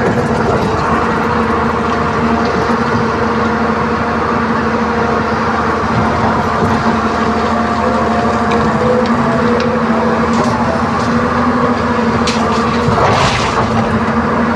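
Excavator's diesel engine and hydraulics running steadily, heard from inside the operator's cab while the joystick controls are worked. There are a few faint clicks in the second half and a short hiss near the end.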